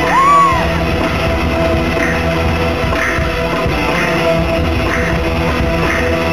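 Live concert band playing through a big PA system, with drum kit and electric guitar driving a steady beat. A short high whoop comes about half a second in.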